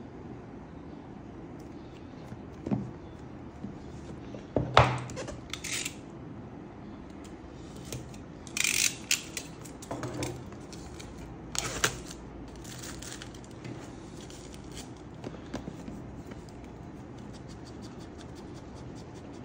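Unboxing: packaging and small accessories being handled, with a sharp knock about five seconds in and several short bursts of rustling and clicking, over a low steady hum.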